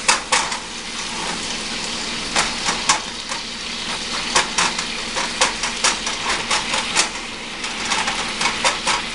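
Sauce sizzling in a hot pan while a utensil stirs it, clinking and scraping against the pan at irregular moments.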